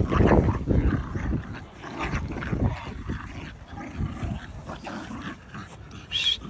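Jack Russell terriers moving about, with a brief high yelp or whine near the end, over wind buffeting the microphone that is loudest in the first second.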